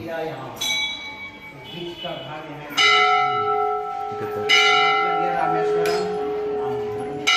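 Metal temple bells struck by hand about five times, roughly every one and a half seconds, each strike ringing on with a steady tone. The first strike is fainter and higher; from about three seconds in, the strikes are louder and ring lower.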